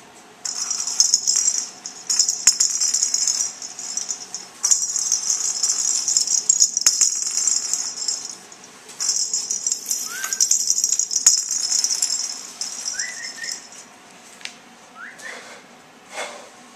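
Small plastic rattle toy rattling in three spells of a few seconds each, with a few short rising squeaks near the end.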